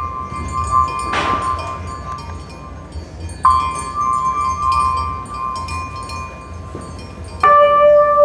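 Struck metal chime tones ringing and slowly fading. A new strike comes about three and a half seconds in and another, with a lower tone added, near the end. There is a short swish about a second in.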